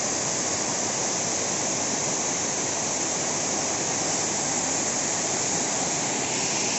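Steady rushing of a tall waterfall pouring onto rock, loud enough to drown out voices nearby. The falls are running at low seasonal flow.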